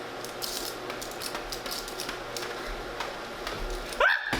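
Handcuff chain clinking and rattling in scattered light clicks as the cuffed hands juggle. A short rising vocal exclamation comes near the end.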